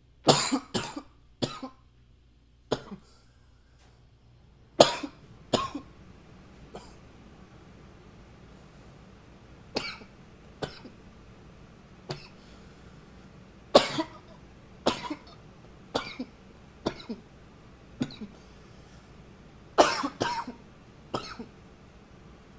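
A man coughing over and over: short fits of several coughs near the start, about five seconds in and near the end, with single coughs roughly once a second between them.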